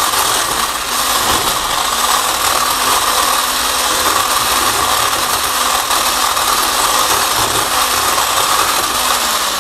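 Handheld immersion blender running steadily, blending oil, honey and vanilla in a glass bowl; its motor pitch drops right at the end.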